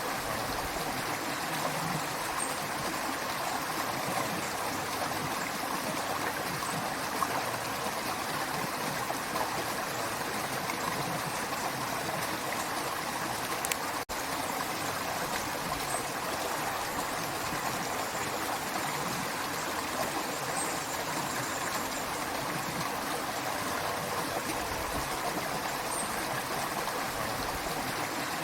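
Creek water running steadily, an even rushing flow with a brief momentary break about halfway through.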